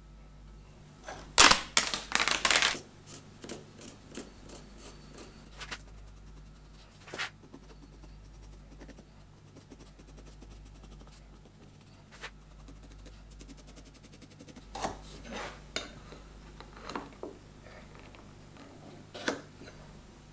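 Hand marking-out on a wooden block: a flurry of paper rustling and handling noise about a second in, then sparse light scratches and taps from a pencil drawing the outline on the wood.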